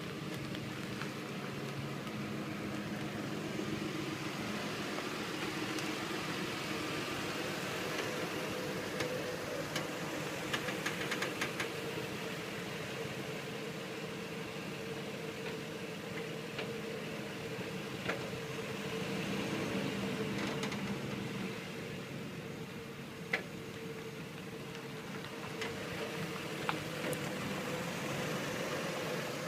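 Nissan Xterra running with a steady drone and a held hum, with scattered clicks and rattles, a cluster of them about ten seconds in. The owner wonders whether the noise is a wheel bearing.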